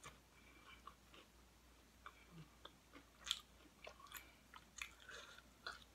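Faint chewing of nachos close to the microphone: a scatter of small crunches and wet mouth clicks, the sharpest crunch a little past halfway.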